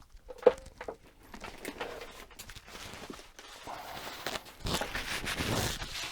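Small clicks and rustling of tools being handled on a workbench, with one sharp click about half a second in, then a scratchy rubbing that starts near the end.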